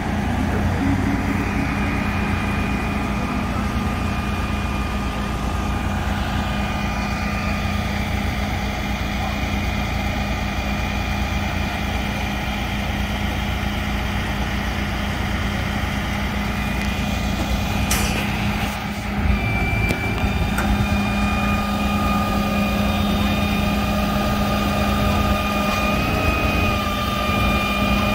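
Large truck engine idling steadily, with a thin steady whine riding above it and one brief click partway through.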